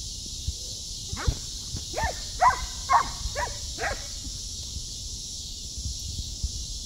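Dogs play-fighting, giving a quick run of about six short, high yips and barks between about one and four seconds in.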